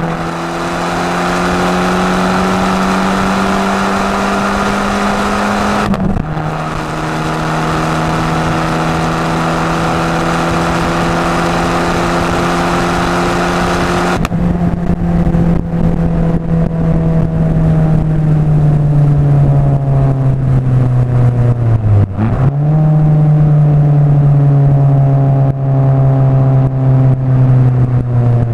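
Abarth 500 esseesse's turbocharged 1.4 four-cylinder with a Garrett 1446 turbo and aftermarket exhaust, heard from inside the car: the engine note climbs steadily under acceleration with an upshift about six seconds in. About halfway through the throttle closes and the engine runs down with a rapid string of exhaust pops and crackles on the overrun, with further drops in pitch near the end.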